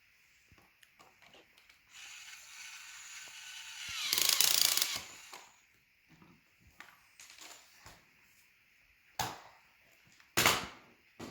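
A small tool driving a screw into the plastic parts of a toy dinosaur kit: a whirring, ratcheting run starts about two seconds in, grows louder and stops about three and a half seconds later. Near the end come two sharp plastic knocks.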